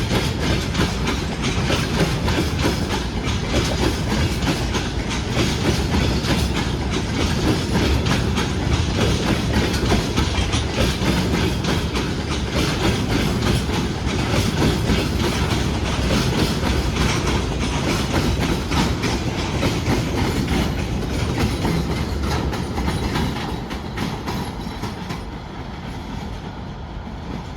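Freight train wagons rolling past, wheels clicking steadily over the rail joints over a heavy rumble. The sound fades over the last few seconds as the train moves away.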